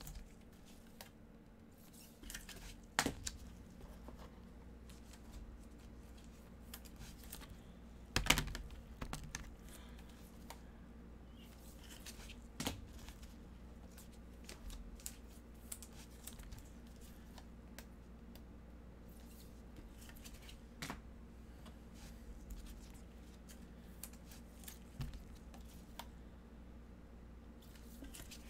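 Trading cards being slid into rigid plastic toploaders by gloved hands: scattered light clicks, taps and plastic rustles, with the sharpest knocks about 3 and 8 seconds in, over a faint steady hum.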